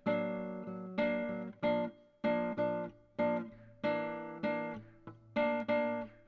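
Intro music: a string of chords, each struck sharply and left to ring and fade, roughly one every half second to second.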